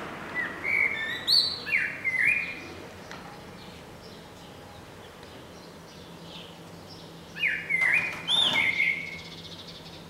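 Male common blackbird singing two short phrases of fluting whistled notes with high thin notes mixed in: one just after the start and another about seven seconds later.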